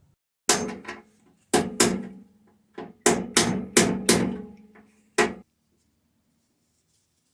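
Hammer blows on steel, about ten sharp strikes in irregular groups, each leaving a short metallic ring. The last strike is cut off suddenly.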